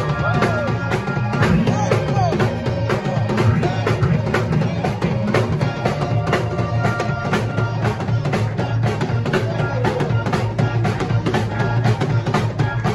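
Live band music: a drum kit playing a steady beat with cymbals, over held chords and bass from an electronic keyboard.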